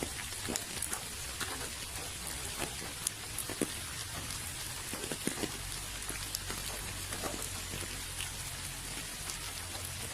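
Steady rain falling, with many individual drops ticking sharply and irregularly through the even hiss.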